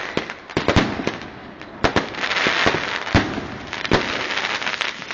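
Fireworks going off: a rapid, irregular run of sharp bangs and cracks, with stretches of hissing between them.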